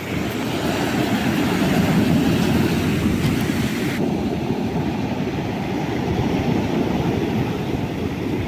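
Steady roar of storm waves breaking on the shore, deep and rumbling, its upper hiss thinning about halfway through.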